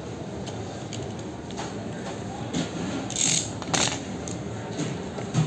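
Steady background murmur of a busy mobile-phone market hall, with a brief hissing rustle about three seconds in followed by a sharp click, and a soft thump near the end, like a phone box being handled on the counter.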